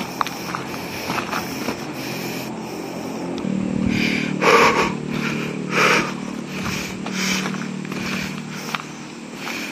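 Footsteps crunching over dry palm fronds and leaf litter on a walk. A steady low hum joins about a third of the way in, and two louder bursts of noise stand out near the middle.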